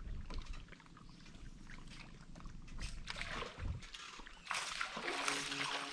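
Quiet ambience aboard a bass boat: water lapping at the hull with scattered faint clicks, then a louder steady hiss about four and a half seconds in. Music comes in near the end.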